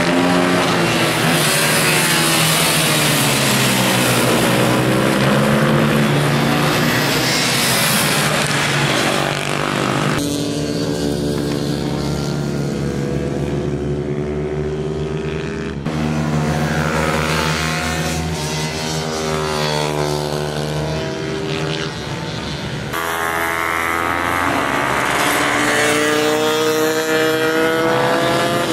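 Several small racing motorcycle engines revving as the bikes corner and pass, their pitch rising under acceleration and dropping off when the riders shut the throttle. The sound changes abruptly three times.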